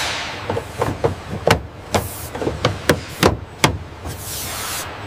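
A run of about ten sharp knocks, like hammer strikes, irregularly spaced over about three seconds, with a hiss just before them and again after.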